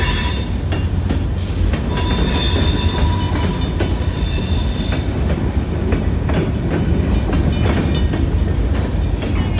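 Freight train's open-top gondola cars rolling past at close range: a steady low rumble with repeated clicks of the wheels over rail joints. A high, steady wheel squeal sounds from about two seconds in until about five seconds in.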